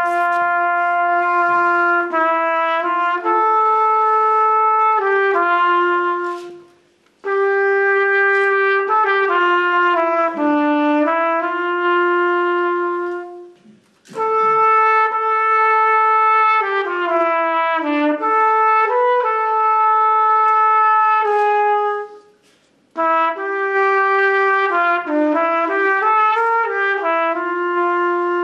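Solo trumpet playing a melody, one note at a time, in four phrases with short pauses for breath between them.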